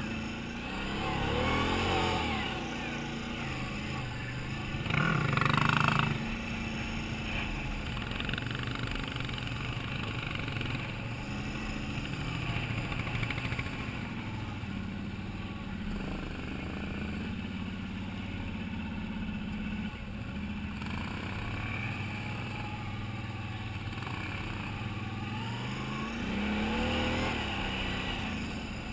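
Can-Am Outlander 800 ATV's V-twin engine running over rough ground, with the throttle opened several times: a rise about two seconds in, a louder rev around five to six seconds in, and another near the end.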